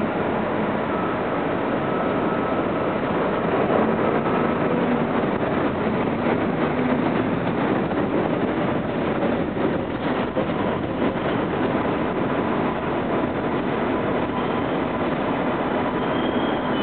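An R143 subway train standing at a station platform, its on-board equipment giving a steady hum and rush with a faint high tone.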